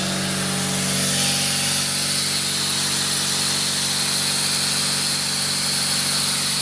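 Plasma cutter torch on a CNC table running its arc and air with a steady hiss that grows about a second in, over a constant low hum. The arc is only etching the 6 mm steel plate, not cutting through it.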